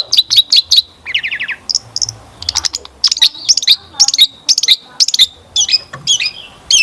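Long-tailed shrike (cendet) singing in fast runs of loud, sharp chirps, with a short series of notes falling in pitch about a second in, part of its song full of mimicked notes.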